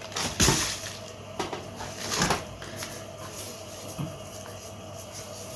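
Coarse salt crunching and scraping as salted mullet are packed into a container, with a few sharp knocks, the loudest about half a second in and just after two seconds.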